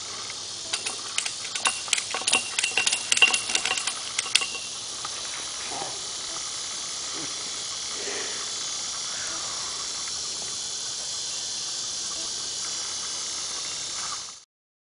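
Heavy-duty ratchet tie-down strap being cranked tight: a quick run of sharp ratchet clicks for about four seconds. Under it, and on alone after the clicks stop, a steady high insect hiss.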